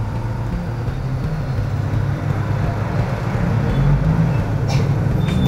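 Steady low rumble of road traffic and vehicle engines, with a brief hiss near the end.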